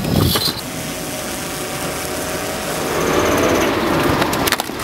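A short bang at the very start, then a BTR-82A armoured personnel carrier's diesel engine running as it drives past, its revs rising about three seconds in.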